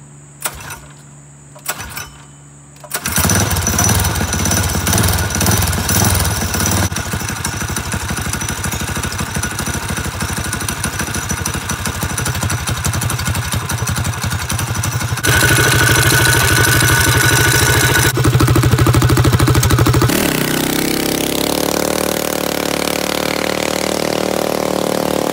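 A four-wheeler's small engine, fitted with a 30 series torque converter, starting about three seconds in after a few clicks. It then runs steadily and gets louder for a few seconds from about fifteen seconds in. About twenty seconds in, the sound changes and eases off a little.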